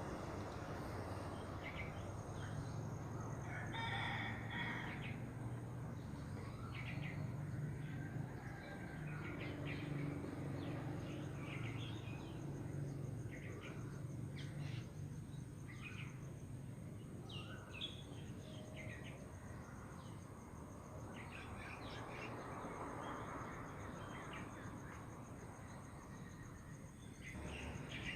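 Wild birds chirping and calling, with one longer call about four seconds in, over a steady background of trickling water.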